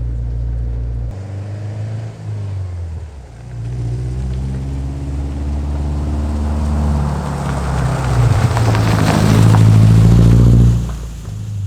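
Naturally aspirated Subaru Forester flat-four engine heard through a GC8 Impreza WRX catback exhaust, pulling under acceleration: the exhaust note rises in pitch and grows louder, peaking about ten seconds in, then drops off suddenly as the throttle closes.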